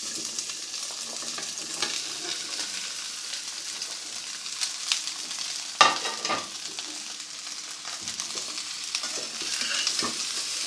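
Cubes of raw animal fat sizzling as they land in a hot metal karahi and are stirred with a metal spatula: the start of rendering the fat into ghee. There is a steady sizzle with scattered knocks and scrapes on the pan, the sharpest about six seconds in.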